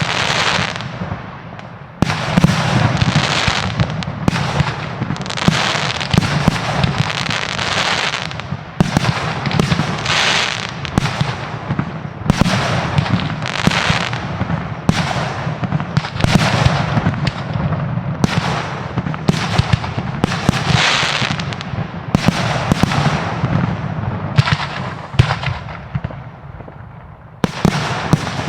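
Aerial fireworks display: shells bursting one after another, a sharp bang about every second or so, each followed by a crackling tail that fades away.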